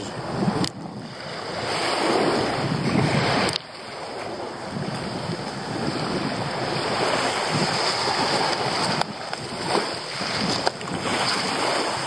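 Sea waves washing in and out over a pebble beach, swelling and falling.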